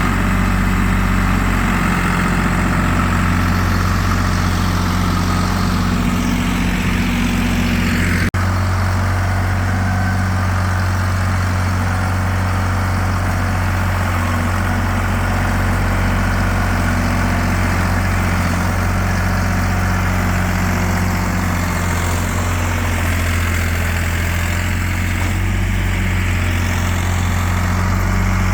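Vintage construction tractor's engine running steadily at a low, even note, with a single sharp click about eight seconds in.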